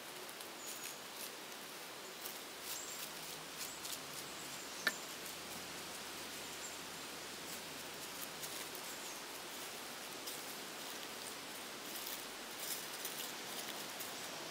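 Quiet outdoor forest ambience with faint rustles and scattered small clicks, one sharper click about five seconds in.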